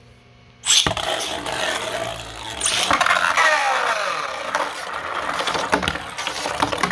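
Two 3D-printed Beyblade spinning tops launched into the stadium under a second in, then spinning and scraping against each other and the stadium with repeated sharp clacking hits; a whine falls in pitch partway through.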